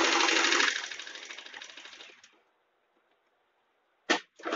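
USHA Janome Wonder Stitch electric sewing machine stitching through cloth at speed with a rapid, even clatter; its feed dogs are raised, so the cloth feeds forward normally. It slows and stops about two seconds in, and starts again near the end.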